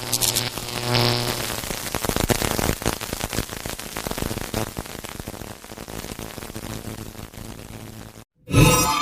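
Dramatic-revelation sting sound effect: a low hit with a deep tone about a second in, then a crackling, buzzing rumble that slowly fades and cuts off abruptly. A new sharp hit with ringing tones starts near the end.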